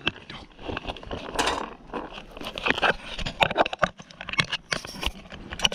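Irregular knocks, scuffs and rustling from a horse being led in on its halter close to the microphone: hooves and footsteps on the ground, with handling noise.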